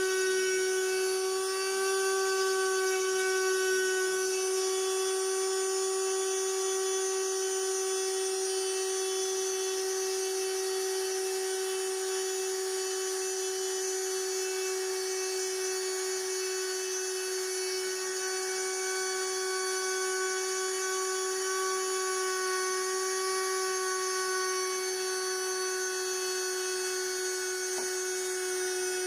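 Small high-speed spindle motor of a homemade Arduino CNC machine running with a steady whine as its bit cuts into wood.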